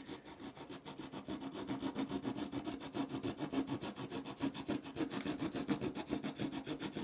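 Tiny saw blade of a keychain multi-tool, about 40 mm long, sawing a piece of wood with quick, even back-and-forth strokes, several a second. The blade makes a cut relatively fast.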